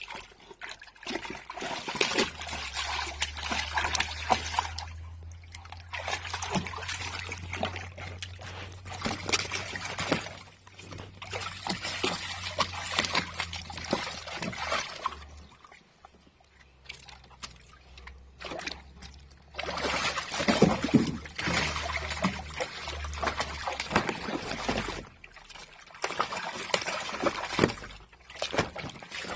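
Labrador splashing and sloshing the water of a paddling pool in irregular bouts, with short lulls between them.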